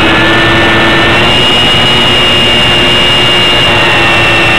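RC plane's motor and propeller heard from a camera mounted on the plane: a steady high whine over heavy wind rush on the microphone, the whine stepping up in pitch about a second in.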